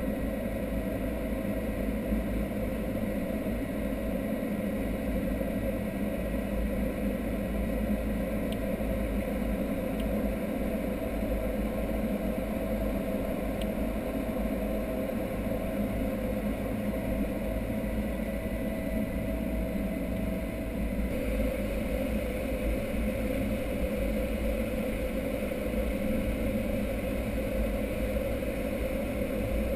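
Steady drone of a Boeing C-17 Globemaster III's four Pratt & Whitney F117 turbofan engines, heard from inside the aircraft on its descent. A few steady hum tones sit within the drone, and they shift slightly about two-thirds of the way through.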